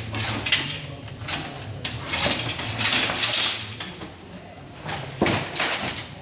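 A bag being fitted by hand onto a shopping-trolley frame: repeated rustling and scraping of the bag against the frame, with a sharp knock about five seconds in.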